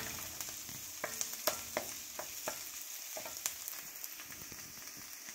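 Diced onions sizzling in hot oil in a metal wok, with a steady hiss. A wooden spoon stirs them, scraping and knocking against the pan several times in the first few seconds.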